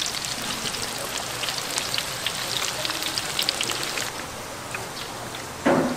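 Food frying in a vat of hot oil: a dense, fine crackling sizzle that thins out about two-thirds of the way through. A brief dull thud near the end.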